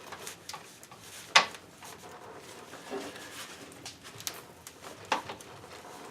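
A few sharp metallic clicks and knocks of hand tools working a tight plug on the truck's rear differential. The loudest comes just over a second in, with smaller ones later.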